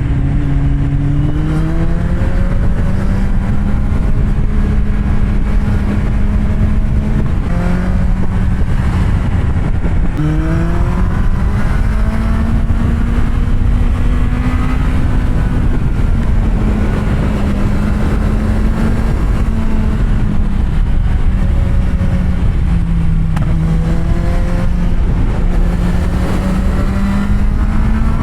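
Kawasaki Z750R inline-four engine running under way, its note climbing several times under throttle and easing back between, with a steady low rush of wind on the microphone.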